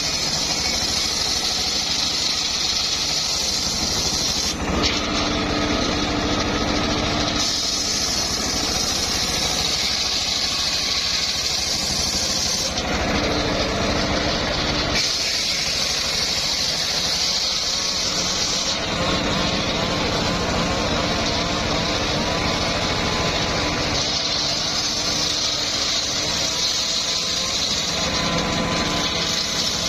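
Homemade circular saw rig running steadily as it saws old mahogany. Its sound changes abruptly every few seconds.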